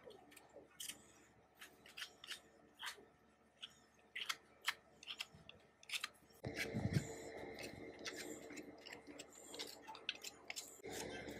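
Short, scratchy strokes of an abrasive sponge pad scrubbing the painted cast-iron bed of an antique sewing machine, one or two strokes a second. A low steady hum comes in about six and a half seconds in, with a dull knock just after.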